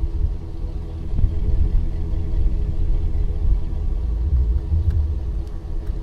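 Chevy Silverado 5.3L V8 idling steadily, heard at the tailpipe through the stock factory muffler: a low, even exhaust rumble.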